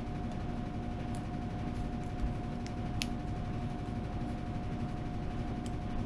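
Steady machine hum, like a small motor or fan, with a low rumble under it, and a few faint light clicks.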